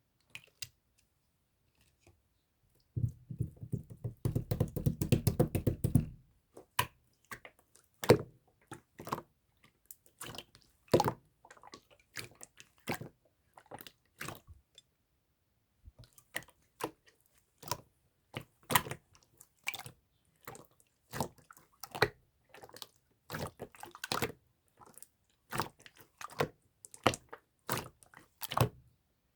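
Clear blue slime being squeezed and pressed by hand, giving a string of sharp wet clicks and pops, with a dense crackling stretch about three seconds in.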